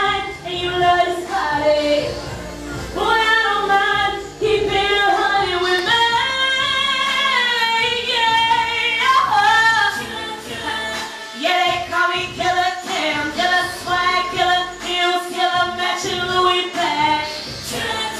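A woman singing into a handheld microphone over music, with long held notes that slide up and down.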